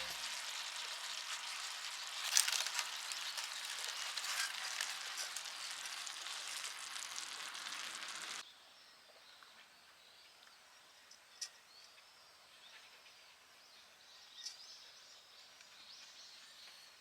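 Food sizzling as it fries in a pan, a steady crackling hiss with occasional pops, which cuts off abruptly about eight seconds in. Faint outdoor ambience with a few thin high chirps follows.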